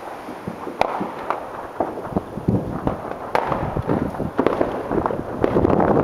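Aerial firework shells bursting in quick, irregular succession, a run of sharp bangs and crackling, getting louder near the end.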